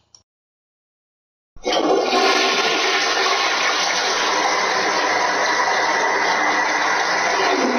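Toilet flushing: after a short silence, a rush of water starts abruptly about a second and a half in and runs on steadily.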